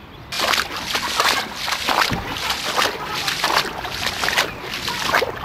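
Feet wading through shallow floodwater on a street: sloshing splashes, one step about every three-quarters of a second, starting suddenly about a third of a second in.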